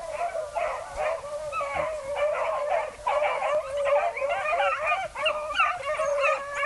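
A pack of beagles baying in chorus as they trail a rabbit, many hound voices overlapping without a break.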